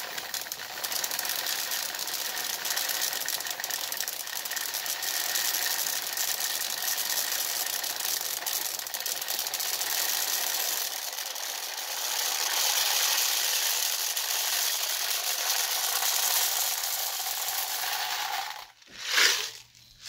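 Plastic airsoft BBs pouring from a plastic jar through a paper-cup funnel into a fabric pouch: a dense, steady rattle of thousands of small pellets. The pour stops shortly before the end, followed by one brief loud burst of sound.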